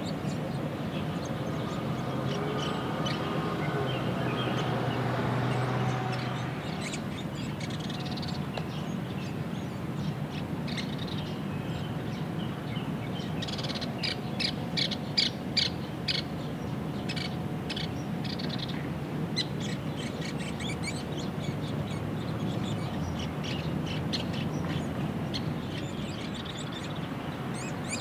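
Grey-capped pygmy woodpeckers calling at the nest: short, sharp, high notes scattered throughout, with a loud rapid run of calls about halfway through, over a steady background hiss.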